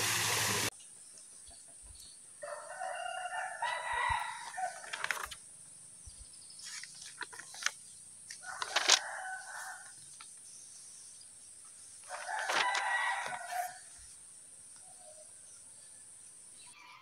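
A rooster crowing three times, each crow lasting one and a half to three seconds, over a steady thin high-pitched tone. A loud rush of water cuts off within the first second.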